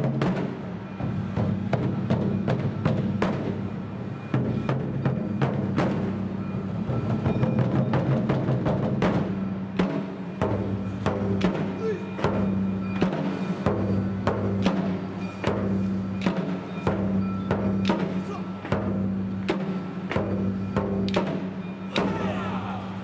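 Japanese taiko drums played by an ensemble in a fast, driving rhythm of strikes, over steady held notes from other instruments.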